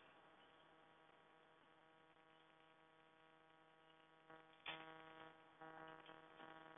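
Near silence: a faint, steady electrical hum, with a couple of faint clicks about two-thirds of the way in.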